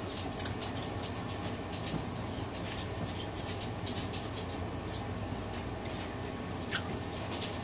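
Steady room noise with a low hum, dotted with scattered light clicks and ticks.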